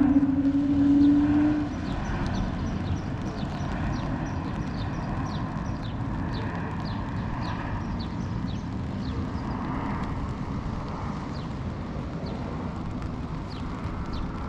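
Street ambience with a steady low rumble and light, regular footsteps about two a second. A loud steady low tone sounds at the start and cuts off before two seconds in.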